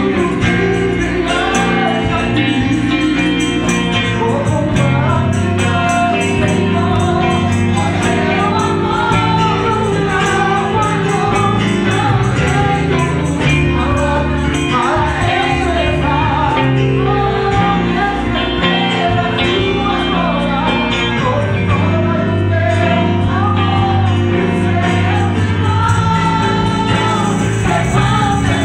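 Gospel choir of mixed voices singing together, led by a man's voice on a microphone, over band accompaniment with a steady percussion beat.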